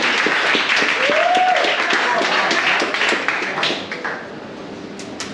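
Crowd applauding and cheering, with a shout about a second in. The clapping dies down about four seconds in.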